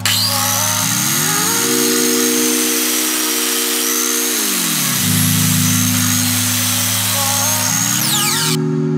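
Mitre saw running and cutting through a panel: a steady high whine over loud cutting noise that stops abruptly near the end. Background music plays underneath.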